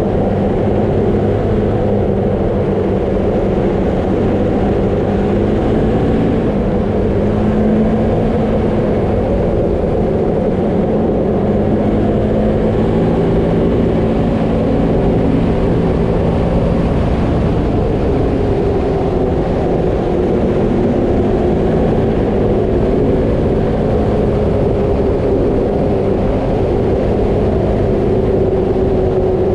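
Vehicle driving steadily along a gravel road: the engine runs at an even pitch that wavers slightly, over continuous tyre and road noise.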